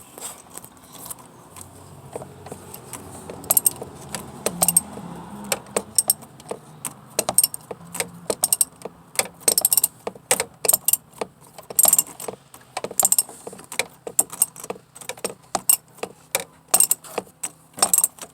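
Socket wrench and socket working a 10 mm bolt: a long run of sharp, irregular metallic clicks and clinks, several a second.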